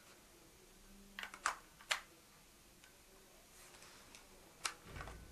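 A few sharp plastic clicks as the camcorder's clip-on memory card recording unit is handled and fitted onto a Sony HVR-Z7: three close together between one and two seconds in, and one more near the end.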